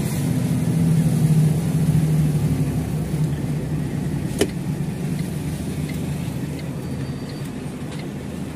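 Lorry's diesel engine running steadily at low revs, heard from inside the cab, slowly getting a little quieter, with a single sharp click about four and a half seconds in.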